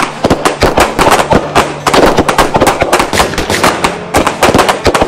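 Several handguns firing at once in a rapid, uneven string of overlapping shots, several a second.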